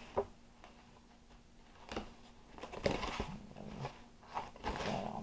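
Crushed Hot Cheetos crumbs crunching and rustling as hands press them onto an egg-washed piece of food in a plastic tray. Irregular scraping bursts, loudest about three seconds in, with a sharp click just after the start.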